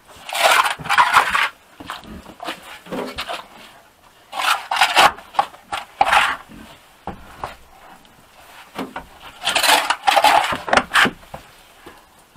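Pitchfork scraping over the barn floor and rustling through straw and manure, in several separate strokes, each a second or so long.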